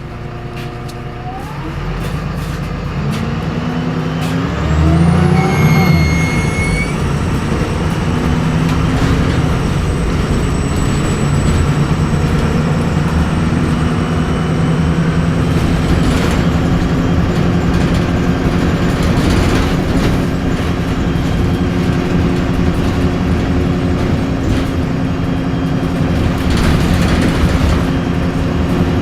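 Diesel engine of a Euro 4 VDL SB200 bus pulling away, its pitch climbing for about six seconds with a high turbo whine sweeping up and back down. It then settles into a steady run, the thin high turbo whistle holding until about halfway, with rattles from the bus throughout.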